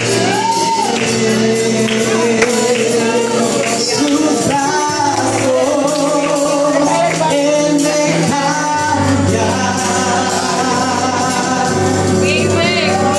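A man sings a worship song into a handheld microphone over backing music with a steady percussive beat.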